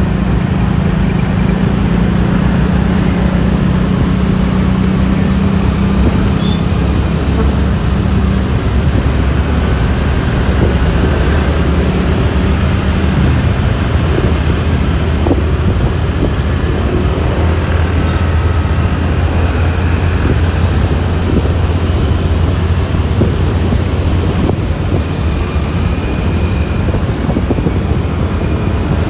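Steady road and wind noise from riding a Yamaha Lexi LX 155 scooter in traffic, with the scooter's single-cylinder engine running at cruising speed. A low engine note holds through the first several seconds and then fades into the road noise.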